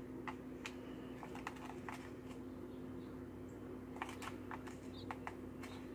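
Scattered light clicks and taps of plastic measuring spoons and a plastic spice-shaker lid as garlic powder is measured out, a small cluster of them about four seconds in. A steady low hum runs underneath.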